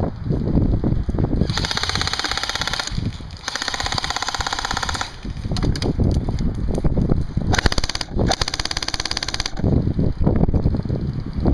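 Airsoft P90 firing full-auto in four bursts, a fast even rattle: two long bursts, a brief one, then another long one. Low rustling and knocking from the gun being carried fills the gaps.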